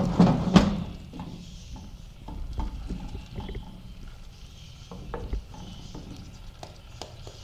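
Wooden spatula stirring chicken pieces through a watery ketchup sauce in a frying pan, scraping and knocking against the pan. The stirring is loudest in the first second or so, then gives way to quieter, scattered small clicks from the pan.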